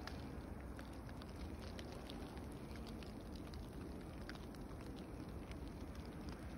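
Ice-storm precipitation falling on snow and bare branches: many small, irregular ticks over a steady hiss and a low rumble.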